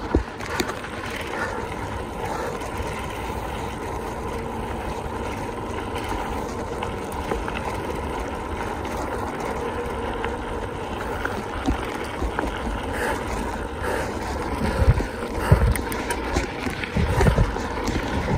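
Steady rush of wind and rolling noise from a mountain bike in motion, with heavier low knocks from bumps in the last few seconds.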